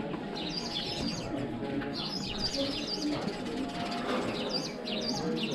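Several small birds chirping in quick, repeated short notes, over a steady background of people's voices.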